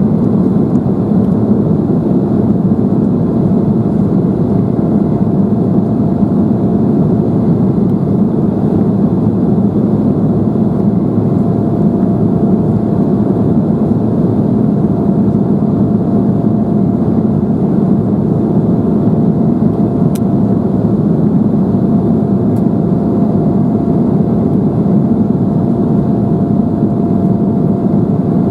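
Steady cabin noise of an Embraer 175 in its climb after takeoff: the hum of its two General Electric CF34-8E turbofans and the airflow, with a faint steady whine running through it.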